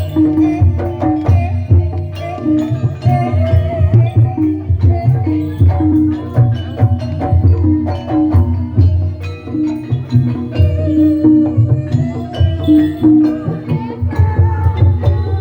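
Live Banyumasan ebeg gamelan music. Kendang hand drums play busy strokes under short, repeated pitched notes and a wavering melody line.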